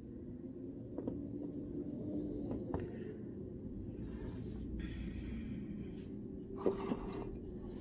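Quiet handling noise from painting a ceramic figurine: a few light clicks and short soft scratchy passes of a paintbrush, over a steady low hum.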